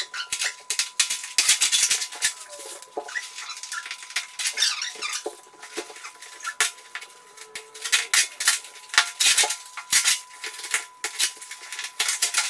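Plastic wrapping on a tightly rolled plush carpet crinkling and tearing as it is pulled open by hand, in an irregular run of sharp crackles and rustles.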